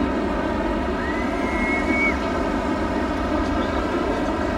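Boat engine running at a steady drone. A brief high tone, rising slightly, sounds about a second in.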